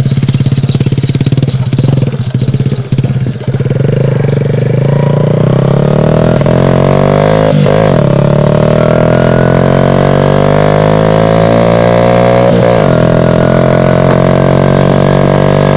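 Small motorbike engine pulling away under throttle, its note climbing steadily. It dips briefly and climbs again twice, about seven and a half seconds in and near twelve and a half seconds: the bike shifting up through its gears.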